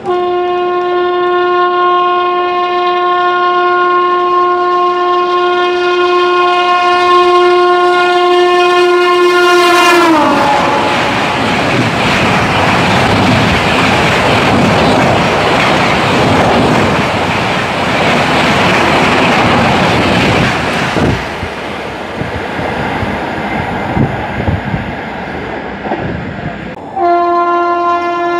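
A passing train's locomotive horn sounds one long steady blast, its pitch dropping sharply about ten seconds in as it goes by. The loud rushing rail noise of the passing coaches follows. A second long horn blast starts near the end.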